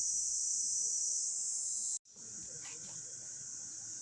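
Steady, high-pitched chorus of summer insects. It breaks off for an instant about halfway through and resumes slightly quieter.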